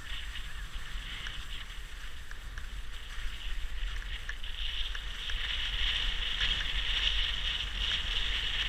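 Steady hiss of sliding over snow down a ski run, growing louder about halfway through, over a low wind rumble on the microphone.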